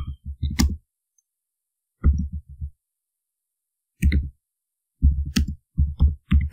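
Typing on a computer keyboard: short runs of quick keystrokes with pauses between them, the runs coming closer together near the end.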